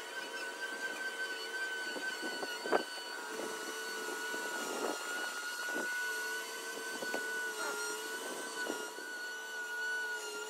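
Boat travel lift running as it carries a cabin cruiser in its slings, its drive giving a steady high whine, with a few faint knocks scattered through.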